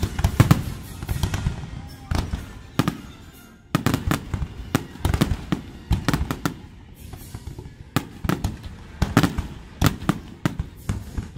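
An aerial fireworks barrage: many sharp bangs and crackling bursts in rapid clusters. It thins briefly about two to three seconds in, then a denser volley follows.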